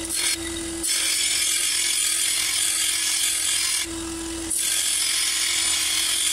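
Bench belt/disc sander (Sealey, 250 W) running with a steady motor hum while a steel lawn mower blade's cutting edge is ground against its narrow sanding belt to sharpen it. The grinding hiss starts about a second in, stops briefly about four seconds in as the blade is lifted off, then resumes.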